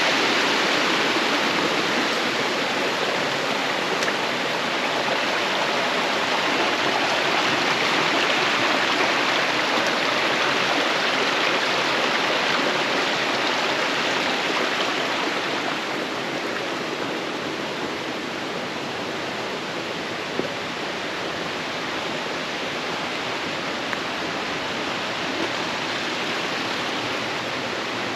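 Rushing water of a mountain stream and waterfall, a steady hiss that eases off a little about halfway through.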